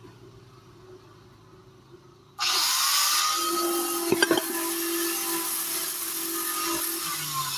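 Angle grinder fitted with sandpaper switched on about two and a half seconds in, its whine rising as it spins up, then sanding stainless steel tube with a steady loud hiss and a few sharp clicks a little past halfway.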